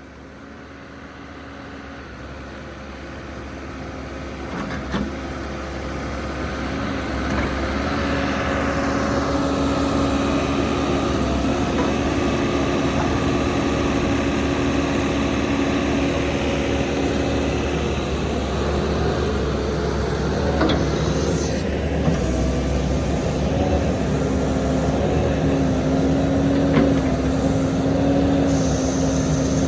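A 2004 New Holland LB75B backhoe's diesel engine running steadily. It grows louder over the first several seconds, then holds, with a few short knocks and a brief falling whine partway through.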